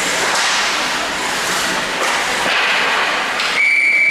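Skates scraping and sticks clattering in a scramble at the net, then about three and a half seconds in a referee's whistle starts one long, steady blast that blows the play dead.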